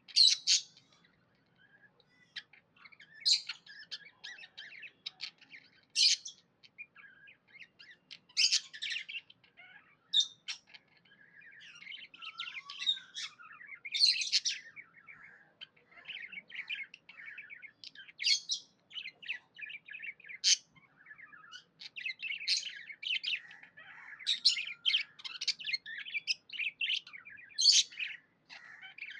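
Budgerigars chattering and warbling without a break, with loud, sharp chirps every few seconds that come thicker and faster near the end.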